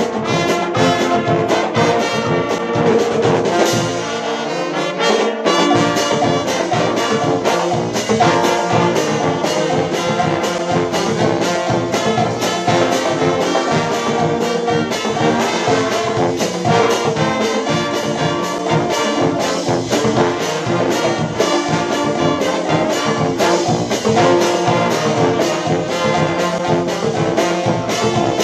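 Dutch dweilorkest (street brass band) playing live: trumpets, trombones, saxophones and a sousaphone over snare drums and a bass drum keeping a steady beat. The bass drops out briefly about four seconds in.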